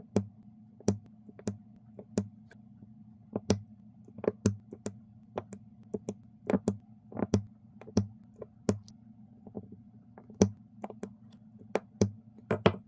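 A plastic diamond-painting drill pen setting round resin drills onto the sticky canvas, with sharp, irregular clicks and taps one to three a second, sometimes in quick pairs. A faint steady hum runs underneath.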